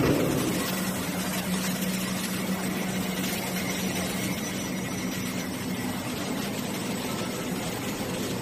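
800-type single-sided pasting machine (box folder-gluer) running steadily: an even mechanical hum and rattle, with a thump right at the start.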